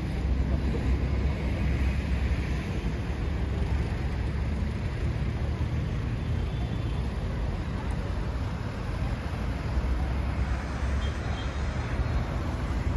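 Steady street traffic noise from passing cars.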